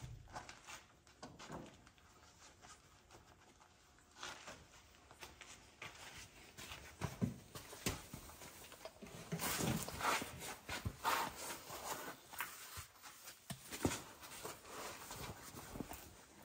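Faint, irregular clicks, taps and light knocks from tools and metal parts being handled.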